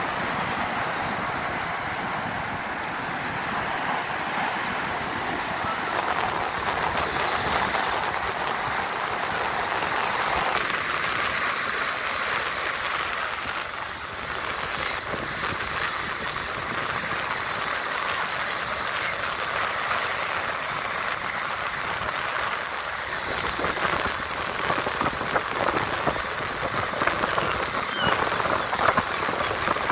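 Ocean surf breaking and foamy wash running up the sand at the water's edge: a steady rushing hiss that gets choppier, with sharper spikes, in the last few seconds.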